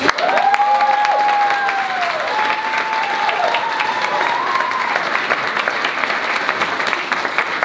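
Audience applauding after the piece ends, starting suddenly and holding steady, with a long wavering whoop from someone in the crowd over it for the first few seconds.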